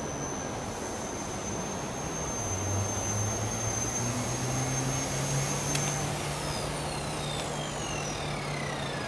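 XK K120 micro helicopter's brushless motor and rotor whining at a steady high pitch, then, after a click about six seconds in, spooling down with a falling whine. The helicopter is being shut down because its head speed would not hold under load.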